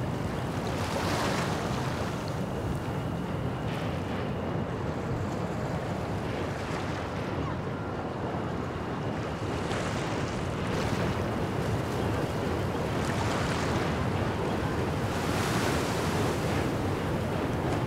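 Small river waves washing over a pebble shore, swelling and falling back every few seconds, with wind rumbling on the microphone.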